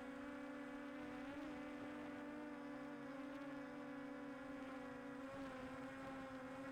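DJI Air 2S quadcopter's propellers running with a steady buzzing hum, its pitch wavering slightly and dipping a little about five seconds in.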